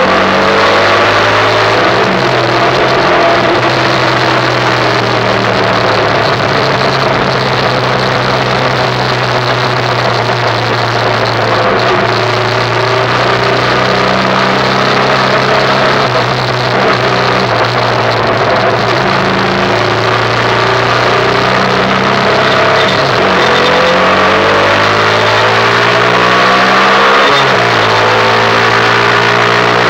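Derestricted Yamaha YBR 125's single-cylinder four-stroke engine running under way, held at fairly steady revs, with wind and road rush. Near the end the revs drop sharply and climb again twice.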